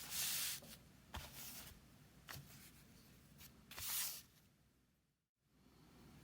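Chinese calligraphy brush stroking across paper: a few separate soft, hissing swishes, the strongest at the start and about four seconds in, with small taps between them. The sound cuts out completely for a moment shortly after five seconds.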